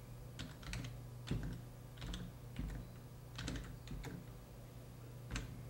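Computer keyboard being typed on in short, irregular runs of key clicks, over a low steady hum.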